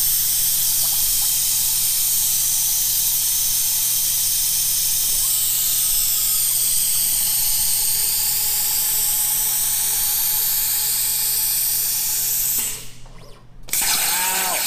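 Steady, loud hiss of rushing air or spray over a low electrical hum, with a shifting high whine in it; it cuts out abruptly for about a second near the end, then resumes.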